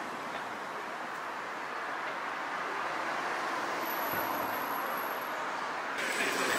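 City street traffic noise: a steady hiss of passing vehicles that swells slowly toward the middle.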